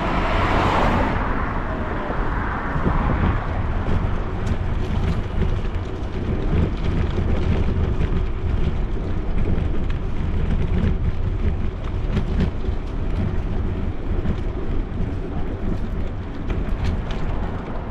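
Wind rumbling on an action camera's microphone while riding a bicycle, a steady low rumble with occasional faint ticks. A car passes close by in the first few seconds, rising and then fading away.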